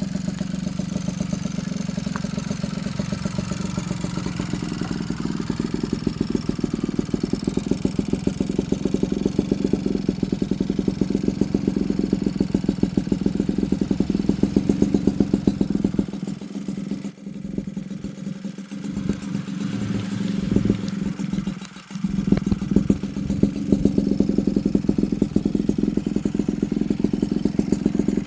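Yamaha Chappy LB80's small two-stroke single-cylinder engine running through a tuned expansion-chamber pipe, a fast steady run of exhaust pulses. It dips twice about two-thirds of the way through, then comes back with louder throttle blips.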